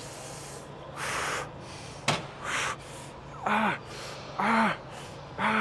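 A man breathing hard and grunting through the last reps of a leg extension burnout set: two sharp breaths, then three short voiced grunts about a second apart near the end. A sharp click sounds about two seconds in.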